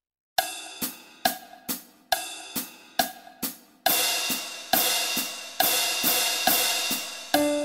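Drum count-in at about 138 beats a minute: eight short hi-hat ticks, then ringing cymbal strikes every two beats. An electric piano accompaniment comes in near the end.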